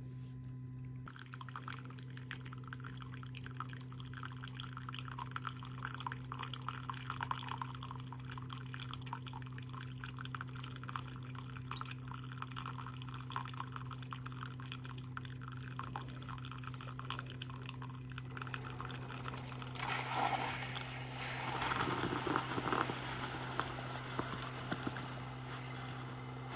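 Single-serve coffee maker brewing: coffee pouring and dripping into a cup over a steady low hum, getting louder and rougher about twenty seconds in.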